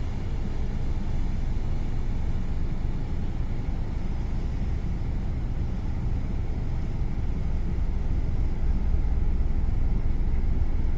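Steady low rumble of a ship's deck, with wind buffeting the microphone, growing slightly louder near the end.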